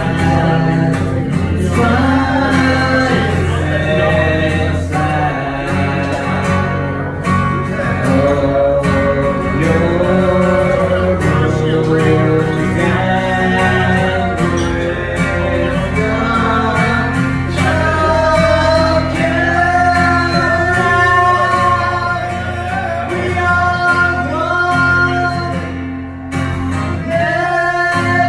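A man singing a song to a strummed acoustic guitar.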